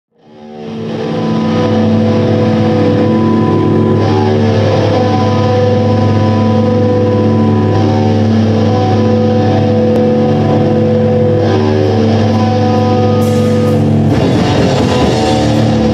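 Live rock band playing: sustained amplified guitar chords that change about every four seconds, fading in at the start, with cymbals and drums joining about thirteen seconds in.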